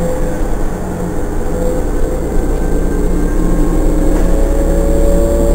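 Diesel-electric hybrid bus, a New Flyer DE42LFA with a Cummins ISL six-cylinder diesel and Allison EP-40 hybrid drive, running while stopped: a steady low hum. A faint whine slowly rises in pitch in the second half.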